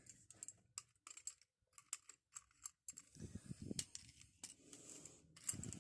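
Small metallic clicks and taps from an old padlock and its key being handled and worked, irregular and scattered, with a few duller knocks.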